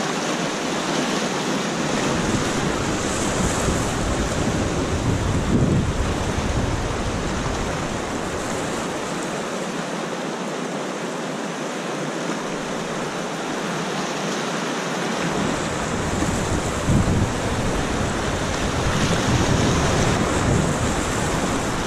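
Class III whitewater rapid rushing and churning steadily around a raft. A low rumble of wind buffeting the microphone comes in about two seconds in, drops away in the middle, and returns for the last few seconds.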